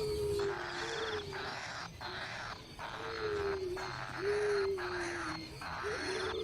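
Bird calls: a series of low, whistled notes that each fall slightly in pitch, over a rasping hiss that comes and goes about once a second.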